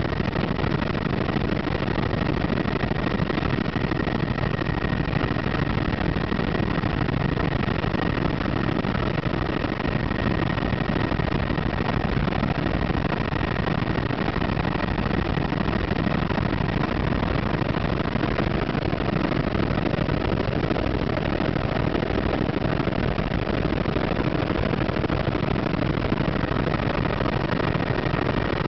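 Helicopter's engine and rotors running steadily in flight, heard from inside the cabin: a dense, even drone with a thin high whine held above it.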